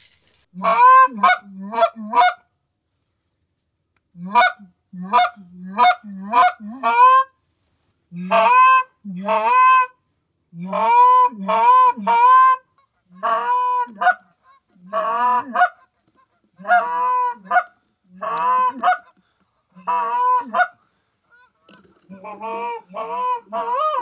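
Canada goose honks: about twenty loud two-note honks, each breaking from a low note up to a higher one, in quick runs of two to five with short silences between, coming faster and softer near the end.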